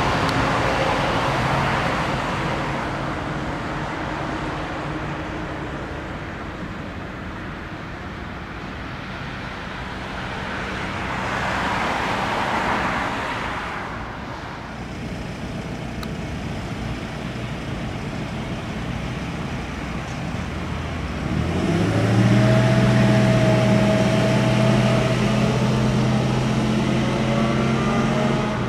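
Jet noise from a British Airways Airbus A320-family airliner on final approach fades as it flies on towards the runway, leaving a rushing rumble that swells briefly and then eases. About three-quarters of the way in, a steady low engine hum with a higher whine sets in suddenly.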